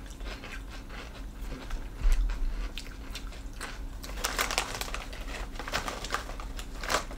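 Crunchy pork rinds being chewed, a rapid crackle of small crunches, with a dull thump about two seconds in and the rustle of the snack bag as a hand reaches into it around four seconds in.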